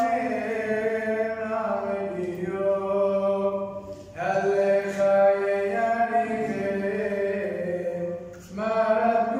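A man's unaccompanied voice chanting a Syriac madrasha hymn, holding long notes and sliding between pitches. It breaks for breath about four seconds in and again near the end.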